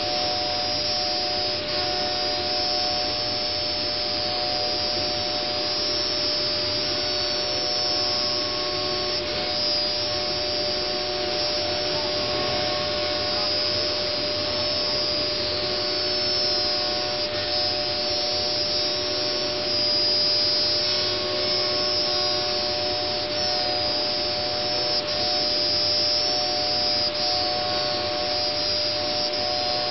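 Multicam 3000 Series CNC router running steadily, its 7.5 HP spindle and dust collector making a continuous whine with several held tones over an even rushing noise.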